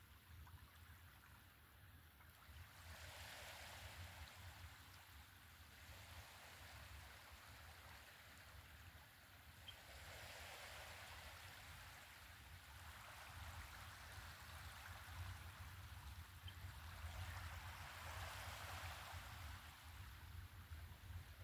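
Faint lapping of small ripples washing in on a shallow beach on a calm sea, swelling into soft rushes every few seconds, over a low steady rumble.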